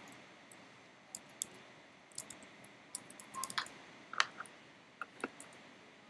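Typing on a computer keyboard: a dozen or so separate keystrokes at a slow, uneven pace.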